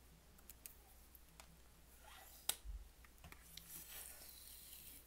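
Clear plastic clamshell box of honeycomb being handled and pried open: scattered light clicks and crinkling of the thin plastic, with one sharper click about two and a half seconds in.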